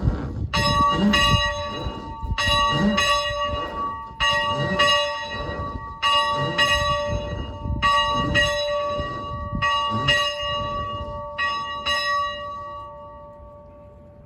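A church bell being rung by swinging, striking in pairs about every two seconds, seven pairs in all. Its ringing tones hang on between strokes, then die away after the last stroke near the end.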